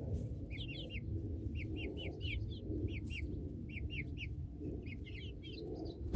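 Young chicks peeping: short high cheeps in quick runs of three to five, repeating throughout, over a low rustling of movement.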